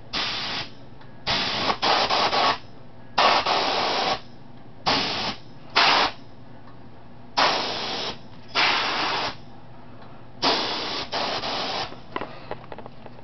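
Airbrush releasing about ten short blasts of compressed air, each a half-second to a second of hiss, as its trigger is pressed and let go again and again. These are test bursts while the compressor's regulator is being turned down to set the working pressure, aimed at about 15 PSI.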